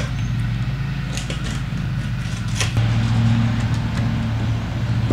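A steady low mechanical hum that grows louder about three seconds in, with a few faint ticks and scrapes of a fillet knife slicing along a striped bass on a wooden cutting board.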